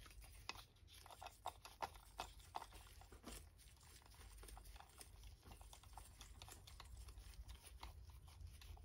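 Faint, irregular small clicks and scrapes of a hand screwdriver with a 2.5 mm hex bit working small fasteners out of a supercharger seal ring. The clicks come thicker in the first few seconds.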